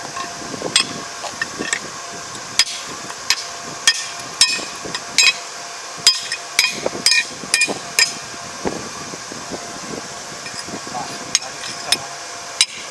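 Hand hammer striking a bent steel rotary-tiller tine from an ER470 rotary, laid on a wooden block: a run of sharp metallic clanks with a short ring, about one a second, pausing briefly in the later part. The tine is being straightened after it was bent by hitting concrete.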